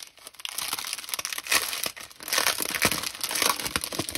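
Plastic packaging crinkling and rustling as it is handled, a dense run of small crackles that gets busier after about the first second.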